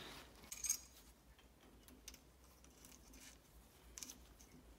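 Faint metallic clicks as a brake pad retaining pin is slid through a Land Rover Defender 110 disc brake caliper against the pad spring retainers, with a sharper click about half a second in and another near the end.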